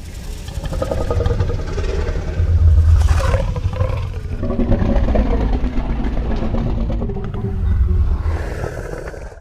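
Sound effect of a fictional ice dragon: a long, deep, rumbling growl-roar lasting about nine seconds. It swells louder twice, then cuts off abruptly.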